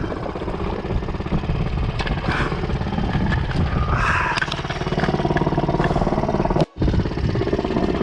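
Small 2-horsepower boat outboard motor running steadily at idle. The sound drops out for a moment about seven seconds in.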